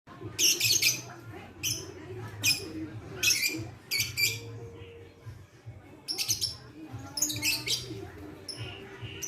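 Lovebird chattering in short, rapid, high-pitched trilling bursts, about eight to ten of them with brief pauses between, over a steady low hum.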